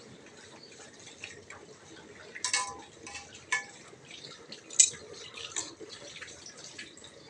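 Several sharp clinks of kitchen utensils against cookware, the first two ringing briefly and the loudest about five seconds in, over a faint steady background noise.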